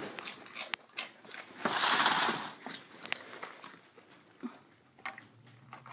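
A dog crunching and chewing a dried cod-skin treat: scattered sharp crunches, with a louder rustle lasting under a second about two seconds in.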